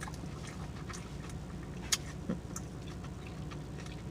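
Close-up mouth sounds of someone chewing a mouthful of crepe: a scattering of faint wet clicks and smacks, with a steady low hum underneath.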